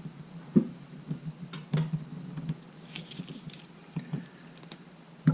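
Small tools and objects being rummaged through and moved about on a workbench: a string of light clicks, taps and scrapes, with sharper knocks about half a second in, near two seconds and at the end.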